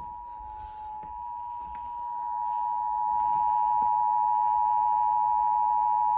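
Emergency Alert System two-tone attention signal (853 and 960 Hz sounded together) on AM radio: a steady dual-pitched electronic tone that grows louder over the first three seconds, then holds. It announces an emergency broadcast, here a tornado warning.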